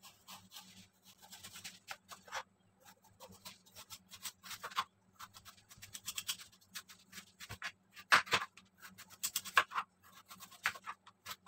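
Kitchen knife shaving the rind off a wedge of pumpkin (kalabasa) on a plastic cutting board: a run of irregular rasping scrapes, the loudest strokes about two-thirds of the way through.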